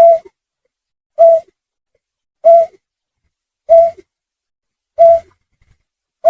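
Snipe lure call (trinil sawah / berkik): a short single mid-pitched call, each ending in a brief lower note, repeated evenly about every second and a quarter, five times over.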